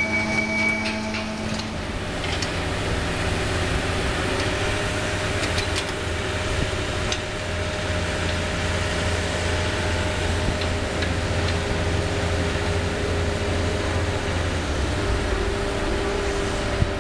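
CAT 301 mini excavator's diesel engine running steadily under load while its hydraulic drum cutter grinds concrete, with a low drone and a few scattered sharp ticks of chipping material. The sound changes about two seconds in, where the picture cuts to another shot.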